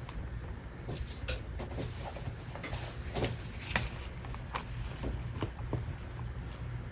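Light, irregular clicks and taps of small plastic parts being handled over a steady low hum, the sharpest taps about three and four seconds in.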